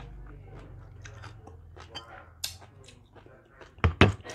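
Close-up chewing of sea grapes (Caulerpa seaweed), many small wet clicks and pops in the mouth. Near the end come three loud knocks.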